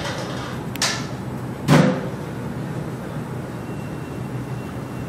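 Two drum hits on a floor tom, about a second apart, the second louder and deeper, over steady background noise and a low hum.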